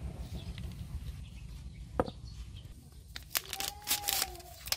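A single sharp click about two seconds in, then a foil packet crinkling and crackling from about three seconds on as it is torn open. A low steady rumble runs underneath.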